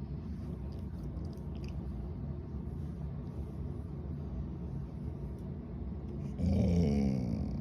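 A dog makes a short vocal sound that falls in pitch, about six seconds in, over a steady low rumbling noise.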